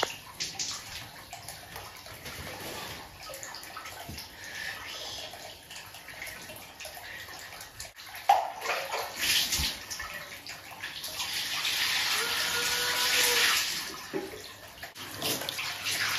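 Hot spring water trickling from a bamboo spout into a wooden bath tub, while a bath bucket is dipped into the tub with a splash about eight seconds in and water is poured out with a loud rush from about eleven to fourteen seconds in.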